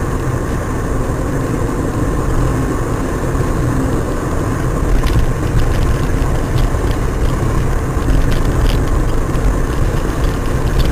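Steady rumble of a car driving, engine and road noise, with a few faint clicks in the second half.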